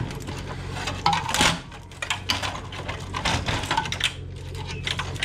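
Irregular clicks, taps and rattles of plastic and wire as an old CRT television is pulled apart by hand, tugging at the copper degaussing wire around the picture tube, with a louder rattling scrape about a second and a half in.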